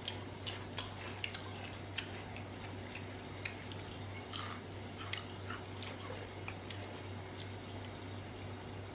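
A person chewing fried vegetable chips close to the microphone: irregular short crunching clicks, a few a second, over a steady low hum.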